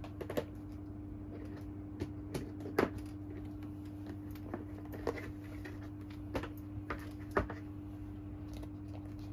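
Steady low electrical hum, with a few light clicks and small knocks at irregular intervals from small objects being handled, the sharpest about three seconds in and again past seven seconds.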